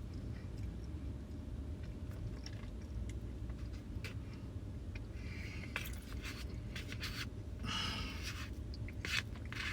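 Quiet eating sounds of a slice of vegan carrot cake being tasted: sharp clicks and scrapes of a utensil in a takeout container, starting about four seconds in, with chewing, over a low steady hum.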